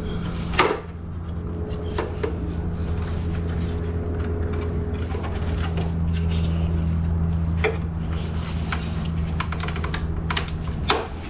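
Hard plastic clicks and knocks as a truck's plastic grille is handled and its clips are worked loose, the sharpest knocks about half a second in and near the end. A steady low hum runs underneath.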